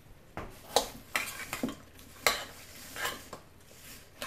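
Metal fork clinking and scraping against a stainless steel mixing bowl while tossing oiled, seasoned Brussels sprouts, in irregular strokes starting about half a second in.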